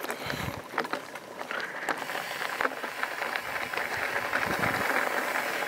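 Bicycle tyres rolling over loose gravel: a steady crunching hiss with many small clicks and pops of stones.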